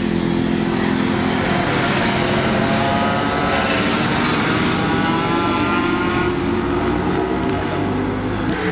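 Sport motorcycles running hard on a race circuit, engines revving and accelerating. Between about three and six seconds in, a rising engine note climbs over a steady low engine drone.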